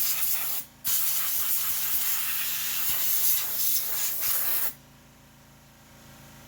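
A loud, steady hissing spray, broken for a moment under a second in and cut off sharply about five seconds in.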